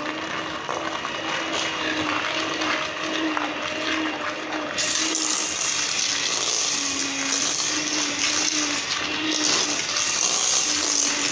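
Electric mixer running steadily with a wavering motor hum, beating cake batter of butter, sugar and milk; the sound gets harsher about five seconds in.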